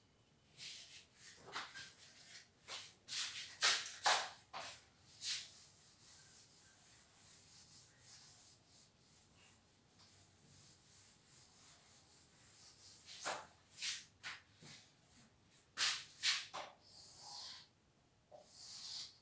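A cloth wiping a whiteboard in a series of short rubbing strokes, then a marker pen writing and drawing lines on the board near the end.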